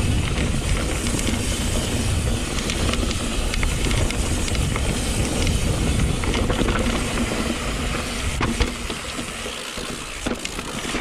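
YT Decoy electric mountain bike ridden on singletrack: wind rumbling on the GoPro microphone, over tyre noise and scattered clicks and rattles from the bike. The low rumble eases off in the last few seconds.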